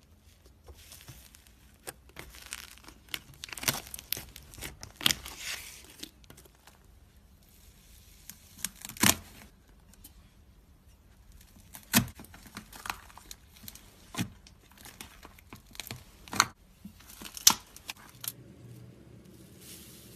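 Slime being played with by hand, squeezed and pulled: stretches of fine crackling broken by about five loud, sharp pops.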